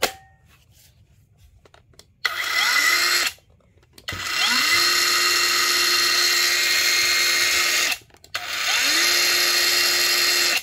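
Cordless 5.5-inch brushless mini circular saw run free with no blade fitted, switched on three times: a short burst about two seconds in, a longer run of about four seconds, then another near the end. Each time the motor's whine rises quickly and then holds steady. A sharp click at the very start as the battery pack snaps into the handle.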